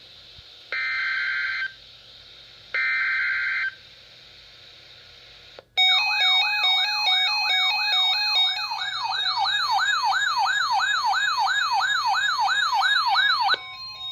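Emergency Alert System weather-radio test signal. Two harsh digital data bursts of about a second each (the SAME header), then about six seconds in, a loud electronic siren-like alarm that sweeps upward in pitch over and over, about two and a half times a second. Near the end it gives way to a single steady warning tone.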